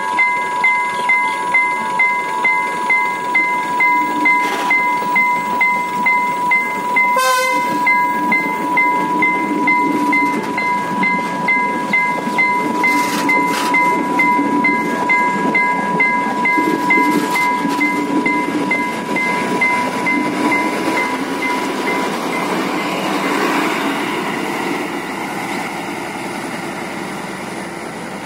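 Level-crossing warning alarm sounding in two steady tones, pulsing about twice a second, while a Class S8 diesel multiple unit passes, its engine and wheels rumbling underneath. A short sharp blast comes about seven seconds in. The alarm stops a little after twenty seconds as the train moves off.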